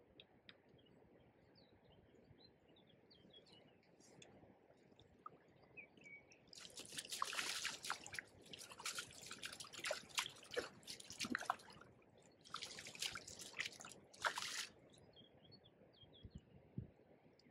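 A barbel of about three kilograms thrashing in a landing net at the water's surface, splashing hard in two bouts: one of about five seconds starting roughly a third of the way in, then a shorter one of about two seconds. Faint bird chirps are heard before and after.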